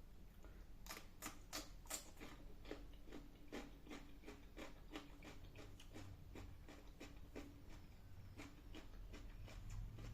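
Faint, irregular clicks and light taps, a few a second, of food being handled on a plate before eating.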